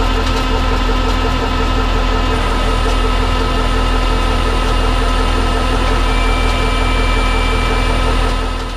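Tractor engine running steadily, with a steady mechanical whine above the engine note; the sound fades out near the end.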